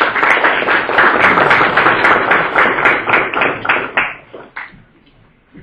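Audience applauding, many hands clapping fast and loud, then dying away about four to five seconds in.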